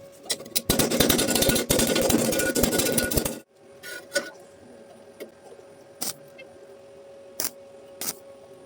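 Harsh metal scraping for about three seconds that cuts off abruptly, followed by a few sharp clicks and taps.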